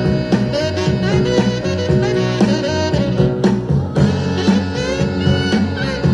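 Upbeat jazz or swing dance music with saxophone and brass and a steady beat, played loud.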